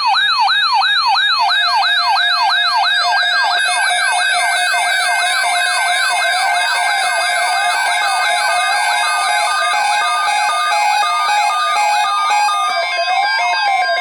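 Several electronic sirens sounding together: a fast yelp sweeping up and down about three times a second, joined partway through by slower rising-and-falling wails and steady tones.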